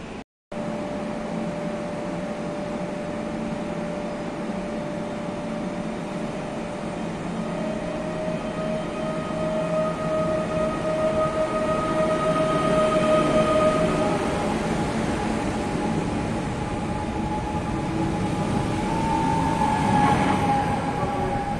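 Pesa Elf electric multiple unit at the platform, its electrical equipment giving a steady whine over a low hum. About two-thirds of the way through, the whine's pitch steps up and the sound grows louder.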